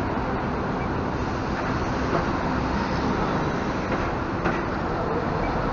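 A double-decker coach driving slowly past close by, its diesel engine running steadily over continuous street traffic noise.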